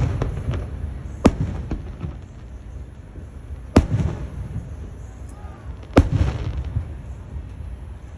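Fireworks bursting: three loud bangs about two and a half seconds apart, each trailing off in a low rumble, with fainter pops and crackles between them.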